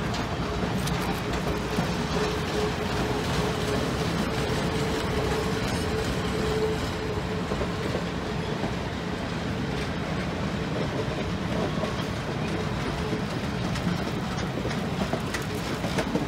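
CSX passenger cars rolling past on the rails, their steel wheels making a steady rumble with rail clatter throughout.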